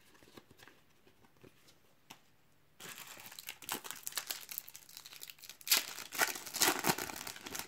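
A few faint taps of trading cards being handled, then, from about three seconds in, the crinkling and tearing of a foil Panini trading-card pack being opened by hand, loudest near the end.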